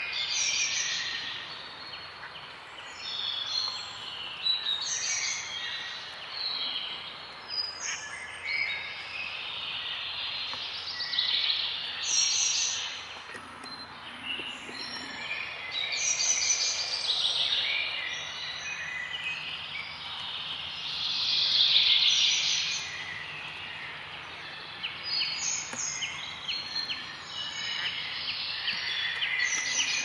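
Several small songbirds singing at once: overlapping high chirps and trills, one song phrase following another, with a louder burst of song about two-thirds of the way through.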